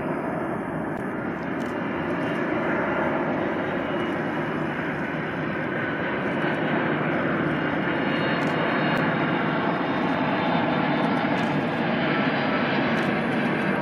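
Boeing 767-300ER airliner's twin jet engines on final approach at low power, a steady rushing noise with a faint high whine that grows slowly louder as the plane comes nearer.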